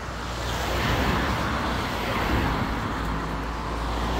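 Cars passing on a wet road: tyre hiss swells about a second in and eases off, then builds again with a low engine rumble near the end as another car comes up.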